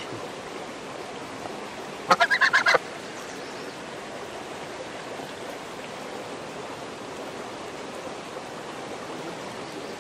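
Domestic goose giving a quick run of about six short, loud honks about two seconds in, over the steady rush of a creek.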